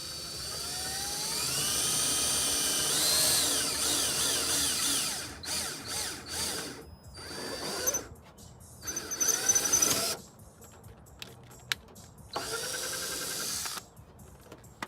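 Power drill running in bursts: one long run whose whine climbs in pitch over the first few seconds and then holds, followed by three shorter bursts.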